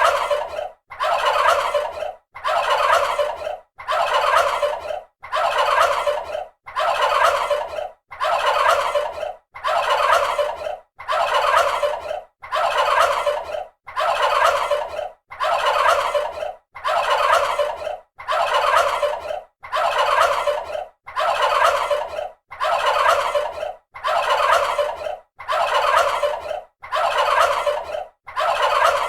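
Turkey gobbling: the same rapid, rattling gobble repeated over and over, about once every one and a half seconds with a short pause between calls.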